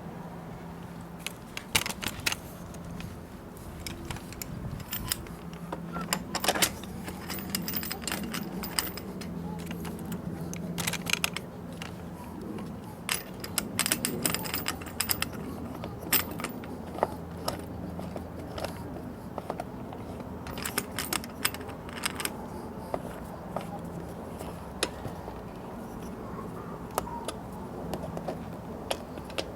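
Tools and metal hardware clinking and rattling in irregular sharp clicks while being handled, over a faint low hum.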